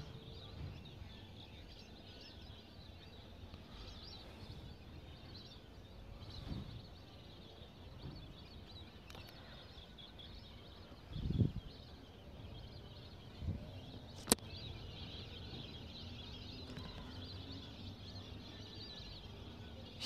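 Faint chirping of a large flock of migratory birds. A low thump about eleven seconds in, a smaller one a couple of seconds later and a sharp click just after.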